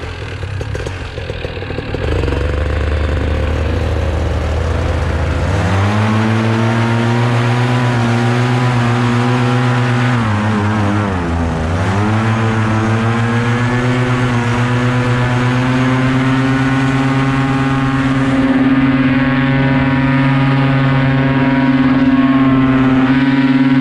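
Paramotor trike engine and propeller, idling low for about five seconds and then throttled up to a steady high-power run. The power dips briefly about eleven seconds in, then climbs back and holds steady at takeoff power as the trike rolls and lifts off.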